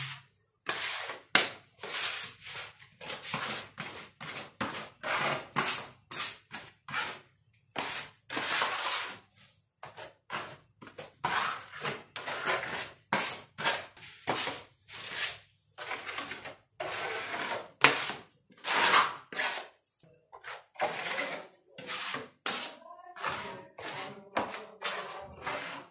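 Putty knife scraping plaster of Paris filler onto a wall and off a mixing board, in repeated short, irregular strokes about one or two a second.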